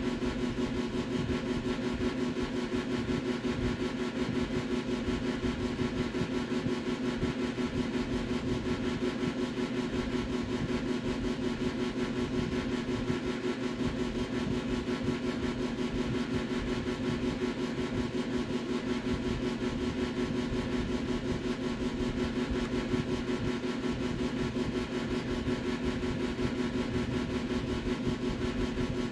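Steady low machine hum, like a small motor or fan running.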